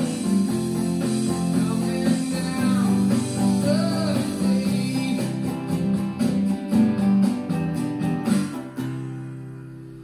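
Acoustic guitar strummed in a steady rhythm, ending on a final chord about nine seconds in that rings and fades away.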